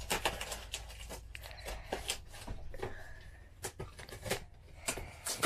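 A large cardboard shipping box being cut open with a blade and its taped flaps pulled apart: irregular scraping, crinkling and sharp clicks of cardboard and packing tape.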